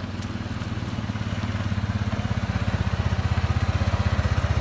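Arctic Cat ATV engine running, growing louder about halfway through and settling into an even, low-pitched putter close by.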